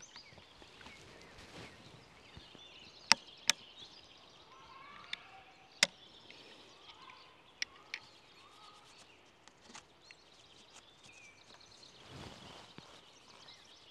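A muzzleloading shotgun stock being handled at the tang while an oily cleaning patch is worked in, giving about six sharp clicks and taps over a few seconds. Faint birdsong sits over quiet woodland ambience.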